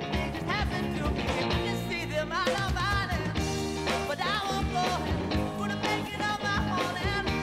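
Rock song with a singing voice over guitar and a steady drum beat.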